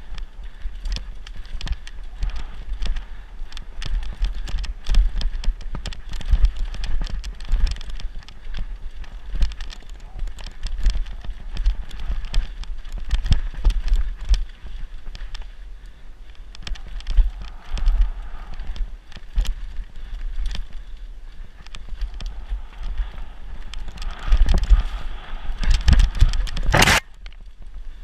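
Mountain bike ridden fast down a rough dirt trail: tyres on dirt and roots, with the bike rattling and knocking over the bumps and low wind rumble on the microphone. A loud, sharp clatter of a hard hit comes near the end.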